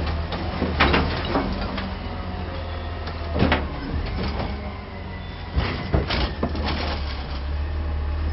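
A low steady rumble like a truck engine, with several short clattering crunches, some near the start, one in the middle and a cluster near the end, as a toy garbage truck's plastic wheels roll over loose rocks.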